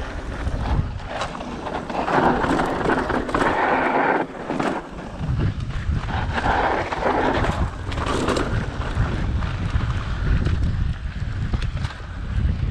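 Mountain bike descending a dusty dirt trail at speed: wind buffeting the microphone in a steady low rumble, tyres hissing and crunching over loose dirt, and short knocks and rattles from the bike over bumps and rocks.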